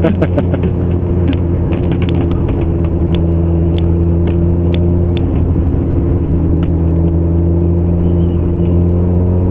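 Motorcycle engine running at a steady cruising speed, heard from the riding bike itself: a steady low hum that holds one pitch throughout.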